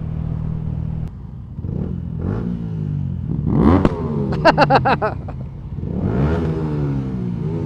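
Yamaha MT-125's single-cylinder engine, breathing through a Scorpion full-system exhaust, revving up and down while riding. It dips off about a second in, rises sharply twice with gear changes, and gives a quick run of exhaust pulses in between.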